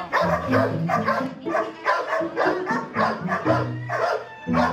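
Background music with a steady beat and bass line, over a puppy's cries as it is given a vaccine injection.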